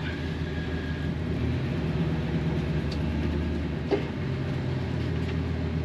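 Engine of a 1999 Utilimaster step van on a Ford E-350 chassis running as the van pulls away, heard from inside the cab as a steady low hum whose pitch steps up a little about a second and a half in.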